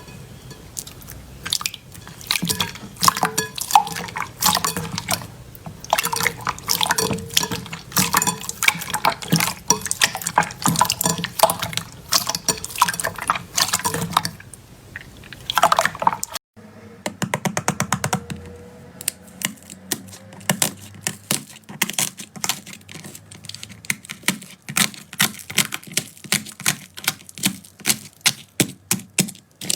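Slime being squeezed and poked by hand: a dense stream of wet, sticky clicks and pops. About halfway through, a different slime takes over with quicker, more even clicking.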